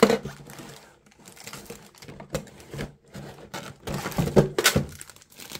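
Plastic wrap crinkling and cardboard boxes rustling and knocking as they are lifted out of a cardboard carton. The handling noises come unevenly, with a sharp knock at the very start and a busier stretch near the end.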